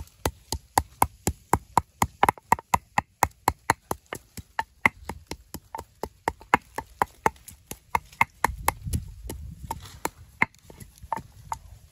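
A fast, even series of sharp knocks, about four a second, with a low rumble for a moment near the end.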